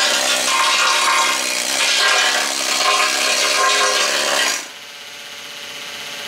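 Air-powered needle scaler (needle gun) chattering against a rusty steel wheel rim, knocking off the rust. It stops suddenly about four and a half seconds in, and a much fainter steady noise remains.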